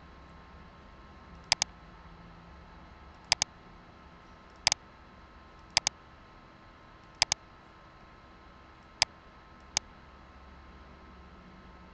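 Computer mouse button clicking seven times, at intervals of about a second or so, most of them as a quick pair of clicks. A faint steady hum runs underneath.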